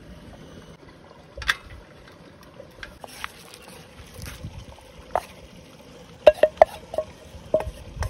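Wooden spatula scraping food out of an aluminium camping pot, with a quick run of sharp knocks of the spatula against the pot about six seconds in, the pot ringing briefly after each.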